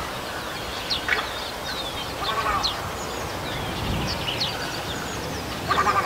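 Cinnamon bittern calling: a few short, harsh nasal calls about a second in, around two and a half seconds in and again near the end. Thin, high chirps from small birds run behind them.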